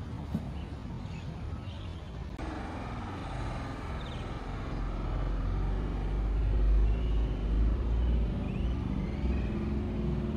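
Low rumble of road traffic that grows louder from about halfway through and is strongest a couple of seconds later, with a sudden change in the background about two seconds in.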